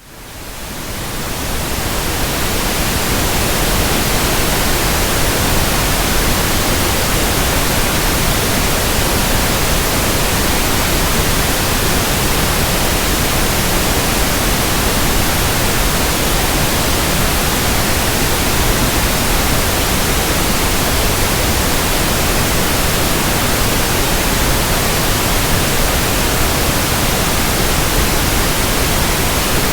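Synthetic pink noise: a steady, even hiss spread across low and high pitches alike, fading in over the first couple of seconds and then holding level.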